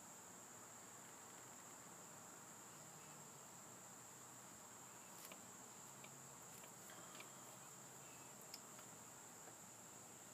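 Near silence: steady room hiss with a thin, steady high-pitched tone running under it, and a few faint ticks a little past the middle.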